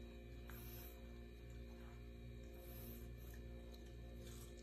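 Faint steady electrical hum, with a few faint soft sounds of a small dog eating watermelon out of a stainless steel bowl.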